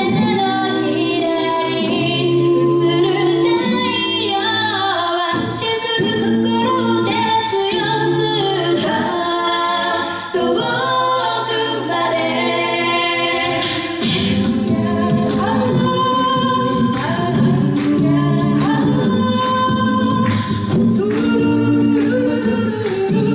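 A cappella group of mixed female and male voices singing a Japanese pop song live, with no instruments. Sustained backing chords and a low bass line run under a female lead melody.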